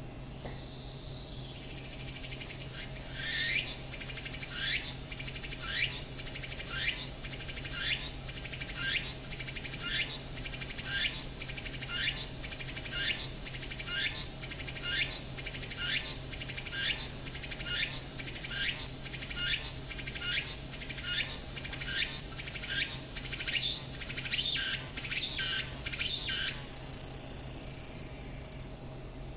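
Tsukutsukuboshi cicada (Meimuna opalifera) singing its full song. Rising phrases repeat about once a second for some twenty seconds, quicken near the end, and finish in a two-second continuous buzz that cuts off. Over a steady high hiss of insect noise.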